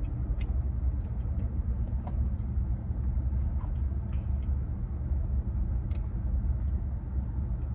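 Faint chewing and small mouth clicks over a steady low rumble.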